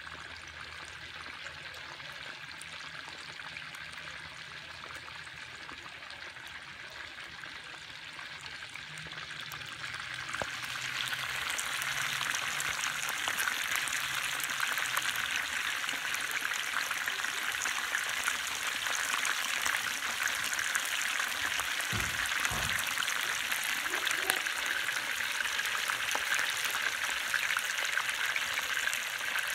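Wood fire burning in a fire pit, then chicken pieces deep-frying in hot oil in a disco (plow-disc pan), a dense steady sizzle of fine crackles that gets louder about a third of the way in. A couple of low bumps come about three-quarters through.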